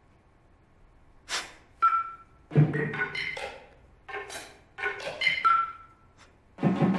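Small tabletop percussion instruments struck with sticks or mallets in an irregular string of sharp strikes, starting about a second in. Several strikes leave a brief ringing tone.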